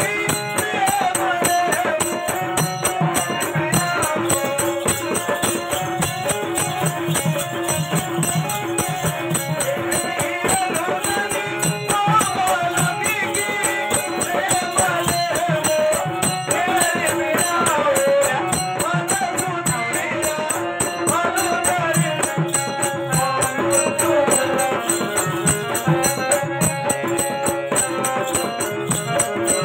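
Live folk-drama accompaniment: a wavering melody over a hand-drum beat, with fast, steady metallic jingling on every beat.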